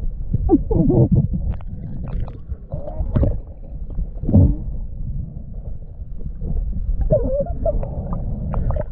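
Muffled underwater sound picked up by a camera held below the surface: a low rumble of moving water with irregular gurgles and bubbling, heard through the waterproof housing.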